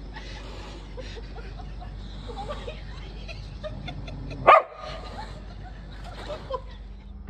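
A dog barks once, short and loud, about four and a half seconds in, between faint scattered yips and whines.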